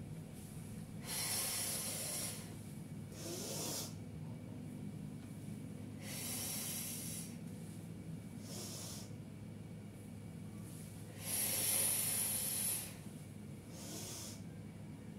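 A woman's heavy breathing during repeated toe-touch stretches: about six loud, hissing breaths in and out through the nose and mouth, a few seconds apart, the loudest near the end. A steady low hum sits underneath.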